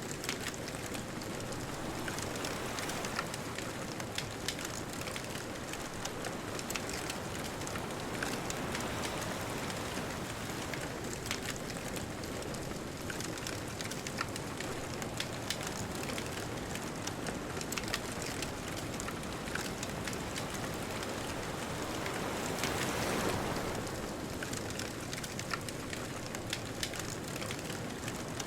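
Wood bonfire crackling with frequent sharp pops over a steady hiss of distant ocean surf. About three quarters of the way through, a wave swells louder for a second or two.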